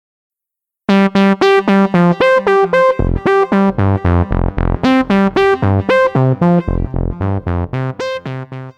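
Short electronic keyboard jingle: quick, detached synthesizer notes at about four a second, with a deeper bass line joining about three seconds in. It starts after about a second of silence and fades near the end.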